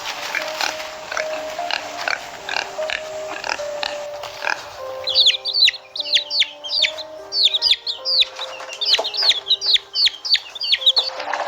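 A simple music melody of held notes plays under animal sounds: short repeated grunting noises for the first four seconds or so, then from about five seconds in a fast run of high chirps, each falling sharply in pitch.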